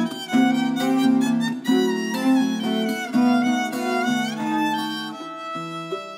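Violin and viola playing a melody together over a Colombian tiple's plucked accompaniment. Near the end the bowed strings drop away and the tiple's plucked notes ring out on their own.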